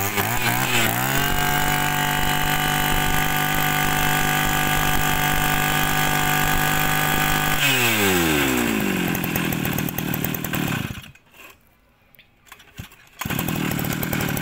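Komatsu BK3401 brush cutter's 34 cc two-stroke engine revving up about a second in and holding a steady high speed, then dropping back to idle near eight seconds. It stops about three seconds later, and after a gap of about two seconds it starts again near the end.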